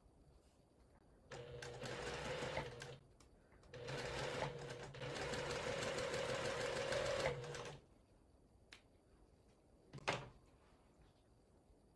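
Electric sewing machine stitching in two runs: a short one of about a second and a half, then, after a brief pause, a longer one of about four seconds, with a quick burst of stitches near the end.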